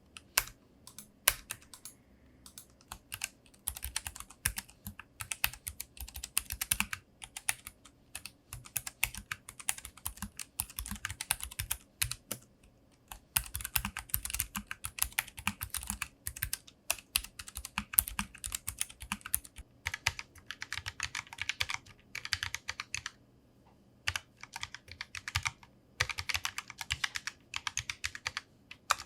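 Typing on a Keychron K3 low-profile mechanical keyboard with tactile brown optical switches: runs of quick, crisp keystrokes broken by short pauses.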